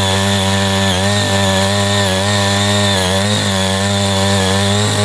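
Small engine of a CY80 walk-behind power tiller running steadily under load while it cuts a ridge furrow in loosened soil, its pitch dipping slightly a couple of times as the tines bite.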